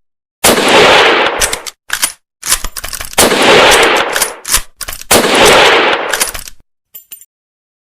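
Mauser Kar 98 bolt-action rifle firing three shots, each ringing on for about a second, with the sharp metallic clicks of the bolt being worked to chamber the next round between them.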